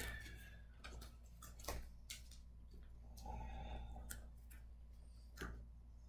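Faint, scattered light clicks and taps, about five over several seconds, with a brief soft hiss a little past the middle.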